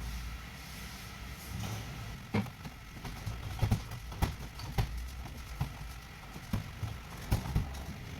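Irregular clicks and knocks of steel gearbox parts being handled and fitted together during reassembly of a manual transmission, over a low steady hum.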